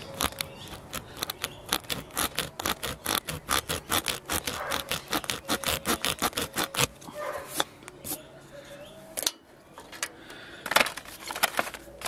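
Tyre repair kit's spiral rasp tool being pushed in and out of a nail hole in a car tyre to ream it larger: quick scraping strokes, about four a second, for about seven seconds, then a quieter pause and a few more strokes near the end.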